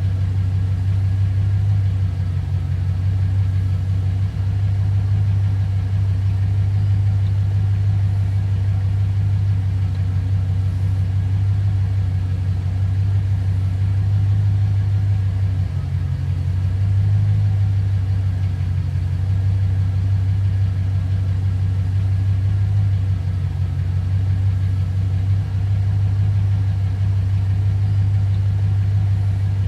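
V8 car engine idling with a steady, low, lumpy rumble.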